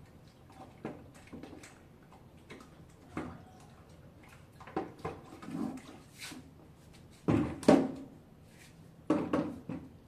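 Knocks and scrapes of a plastic paint bucket being handled and set on a tiled floor, with two loud knocks about seven and a half seconds in and a few more near the end.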